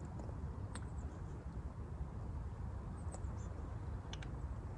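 Quiet riverbank ambience: a low rumble of wind on the microphone, with a few faint, short, high bird chirps scattered through it.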